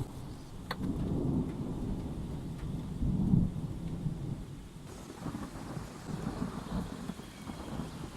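Rolling thunder rumbling low and uneven, swelling several times and loudest about three seconds in.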